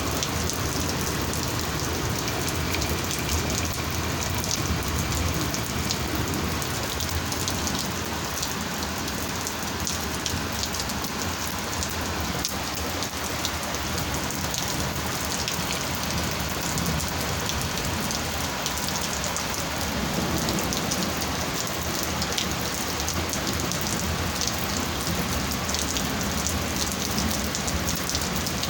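Heavy rain falling steadily during a thunderstorm, with many individual drops striking close by.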